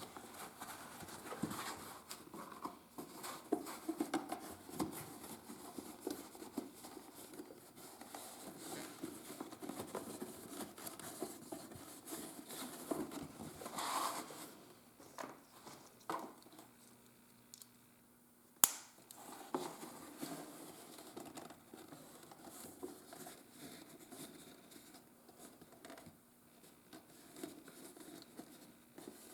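Leather being handled and worked with hand tools at a bench: irregular rustling, scraping and light tapping, with one sharp click about two-thirds of the way through.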